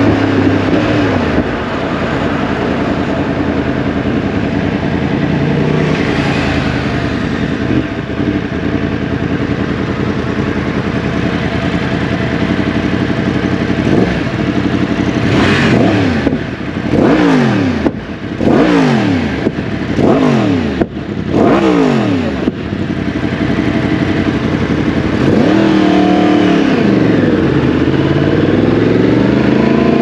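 Yamaha MT-10 crossplane inline-four engine and exhaust under way, with wind noise: steady running at first, then from about halfway a burst of hard revving and gear changes, the pitch swinging quickly up and down five or six times with brief drops in loudness. Near the end the revs fall and then climb again.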